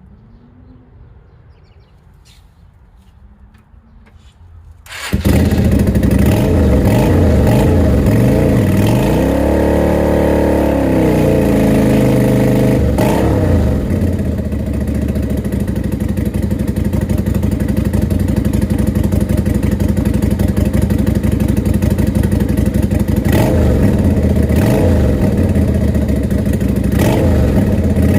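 Lifan V16 250cc V-twin motorcycle engine, freshly rebuilt, starting up about five seconds in through a curved horseshoe aftermarket exhaust, loud. It revs up and back down once, then idles steadily, with a couple of short throttle blips near the end.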